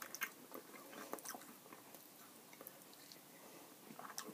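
Two people chewing jelly beans: faint, scattered mouth clicks and smacks, more of them in the first second and near the end.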